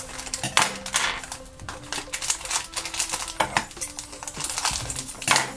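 Thin LDPE plastic blind bag crinkling and crackling as it is handled and cut open with scissors, in a string of sharp rustles, over soft background music.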